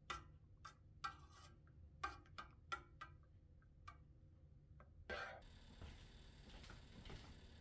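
A series of light, irregular clicks and taps, about ten in five seconds, then a brief scraping or rustling burst about five seconds in, over faint steady hiss.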